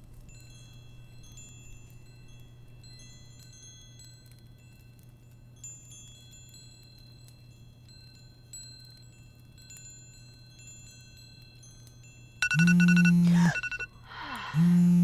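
Wind chimes tinkling in scattered, overlapping high notes over a low steady hum. About twelve and a half seconds in, a much louder held low tone with many overtones starts, breaks off, and comes back near the end.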